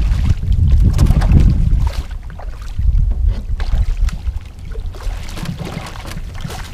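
Wind rumbling on the microphone, heaviest in the first two seconds, with splashing as a hooked saugeye is scooped into a landing net beside the boat.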